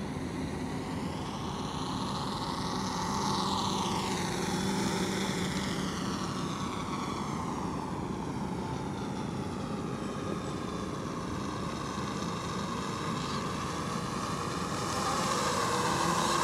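LotusRC T380 quadcopter's motors and propellers buzzing in flight. The pitch sweeps up and back down a few seconds in, and the sound grows louder near the end.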